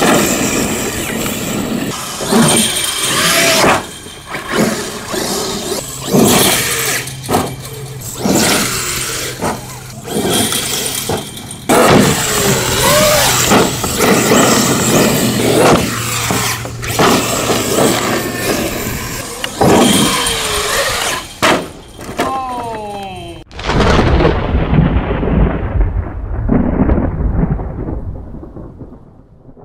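Electric Traxxas RC monster truck driving hard on gravel: its motor whines up and down with the throttle while the tyres spray and crunch gravel, with frequent sharp knocks. About 23 seconds in this gives way to a deep thunder-like rumble that fades away.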